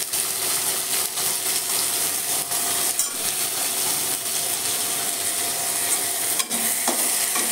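Chopped onion, green chilli, cumin and freshly added tomatoes sizzling in hot oil in a metal kadhai, stirred with a metal slotted spoon. The sizzle is steady, with a few short scrapes and clicks of the spoon against the pan.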